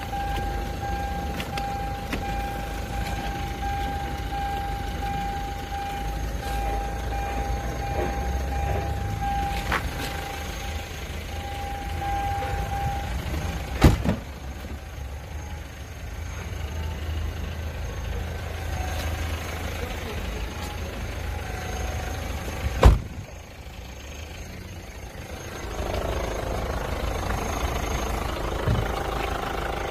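Hyundai Santa Fe's engine idling, a low steady rumble, with a steady high tone during the first half and two sharp thumps, about halfway through and again about three quarters of the way through.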